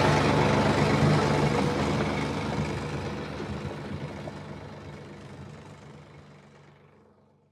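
Large farm-machinery diesel engine running at a steady speed with a low hum, fading out gradually over the second half.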